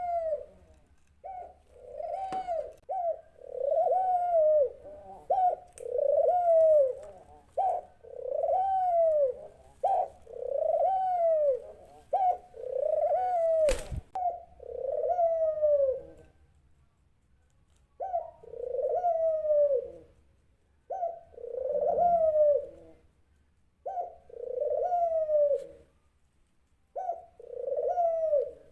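Dove cooing: a long run of arched coos that rise and fall, about one a second, mixed with a few shorter notes, pausing for about two seconds past the middle. A single sharp click sounds near the middle.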